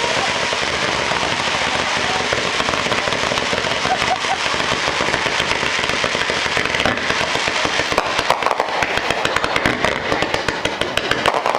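Fireworks display with fountains and rising comets, hissing and crackling continuously, with rapid sharp pops and cracks growing denser in the second half.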